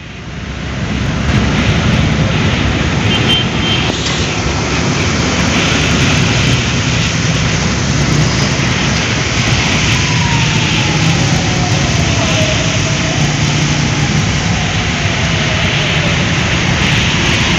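Road traffic on a rain-soaked street heard from inside a moving car: a steady wash of tyre spray on wet tarmac over a low engine rumble, fading in over the first second or so. A faint falling whine passes a little past halfway.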